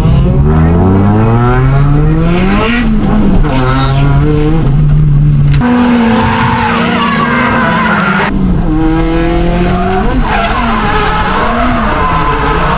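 Nissan S14 Silvia's turbocharged SR20DET four-cylinder engine revving hard while drifting, its pitch climbing and dropping again and again and held high for a couple of seconds in the middle, over loud tyre squeal.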